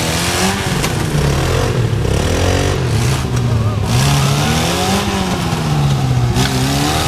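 Off-road vehicle engine revving up and down over and over, its pitch rising and falling, with a steadier engine note running underneath.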